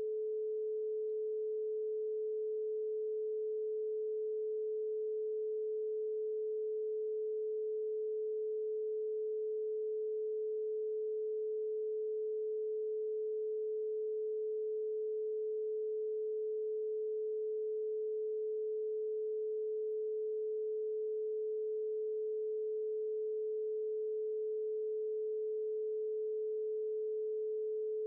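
A single steady electronic tone, a little below 500 Hz: an isochronic tone for brainwave entrainment.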